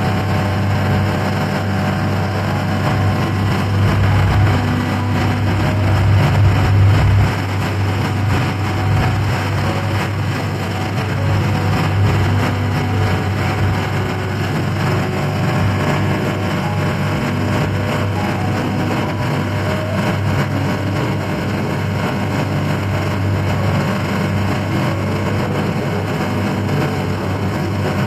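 Small ferry's engine running steadily, a low hum that swells briefly about four to seven seconds in and then holds.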